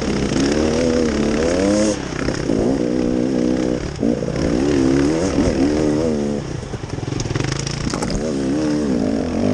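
Off-road vehicle engine running under load, its pitch rising and falling repeatedly as the throttle is worked over uneven trail.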